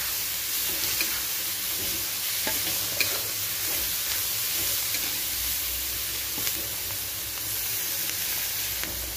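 Julienned carrots, green capsicum and onions sizzling steadily in hot oil in a wok while a metal spatula stirs them, with a few faint clicks of the spatula against the pan.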